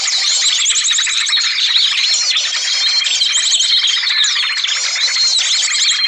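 Bird-lure recording of small songbirds: a dense, noisy chorus of many birds chirping and trilling over each other without pause, with one sustained high trill through the middle.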